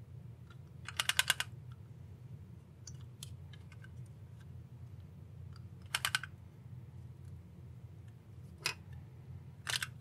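Small plastic clicks and rattles as the plastic housing of a car's engine start/stop button is handled and pried apart by hand: four short clusters of quick clicks, about a second in, near six seconds, near nine seconds and just before the end, with faint ticks between.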